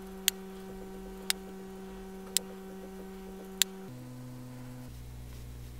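Soft background music of steady held notes that shift to a new chord near the end, with four sharp clicks about a second apart.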